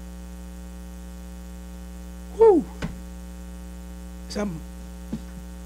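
Steady electrical mains hum throughout. A short vocal sound falling in pitch, the loudest thing, comes about two and a half seconds in, with a fainter short vocal sound about four and a half seconds in and a couple of small clicks.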